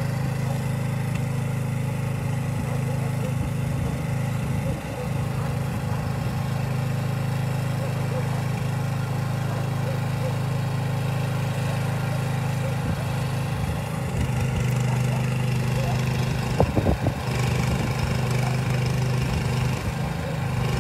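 A small engine running steadily. A few sharp knocks are heard near the end.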